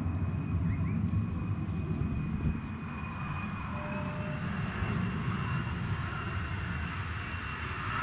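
A steady low rumble with a thin, steady high-pitched whine through it, and a few faint bird chirps and soft repeated ticks over them.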